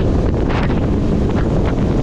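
Wind noise rushing over the microphone of a camera on a moving motorcycle at road speed, steady and loud, with a few brief louder gusts.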